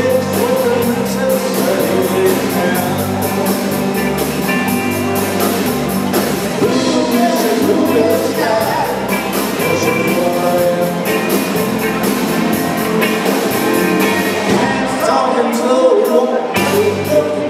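Live rock band playing a rock and roll song: electric guitars and drum kit, with a singer over them. The low end drops out briefly about 15 seconds in.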